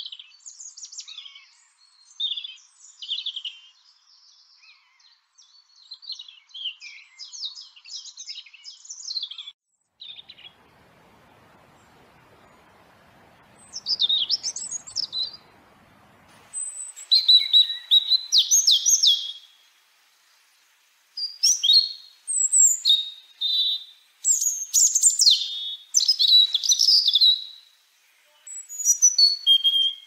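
European robin singing: short phrases of high, thin, warbling notes separated by pauses. After a lull about ten seconds in, the phrases come back louder.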